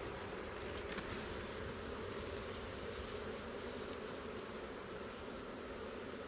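Honeybee colony humming steadily in an opened hive, with a few faint clicks.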